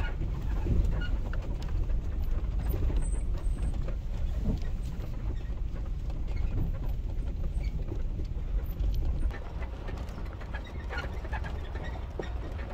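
Cabin noise of a truck on 37-inch off-road tyres driving slowly over a rough, rutted dirt forest road. A steady low rumble runs throughout, with frequent short knocks and rattles as the suspension and interior take the bumps.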